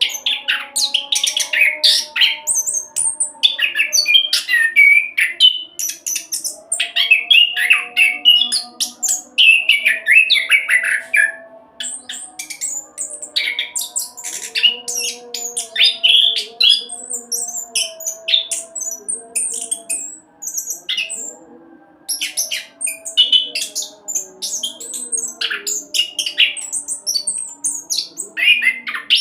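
Anis kembang (chestnut-capped thrush) singing its fast, rolling song in rapid runs of high, varied notes with only brief pauses. Faint background music lies underneath.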